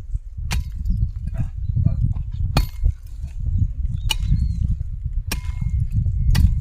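A hand hoe chopping into garden soil while weeding: five separate blows, one every one to two seconds, some with a brief metallic ring from the blade. A steady low rumble runs underneath.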